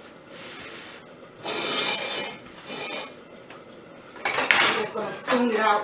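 Metal spoon scraping and clinking against the inside of a stainless steel cooking pot while boiled neck bones are scooped out, several separate scrapes with a slight metallic ring.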